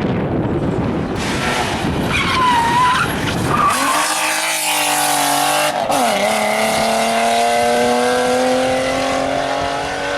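Rally car driven hard on the stage: tyres squeal through a corner, then the engine pulls with its pitch climbing steadily. It changes up a gear about six seconds in and climbs again.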